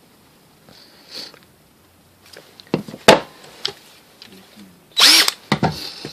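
A few sharp plastic clicks from handling a DeWalt 20V cordless tool, then about five seconds in a brief burst of its motor spinning up and stopping when the trigger is squeezed, lasting under half a second.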